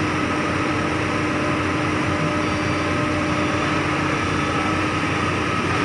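Diesel engines of heavy construction machinery running steadily, a low hum with a steady higher whine over it.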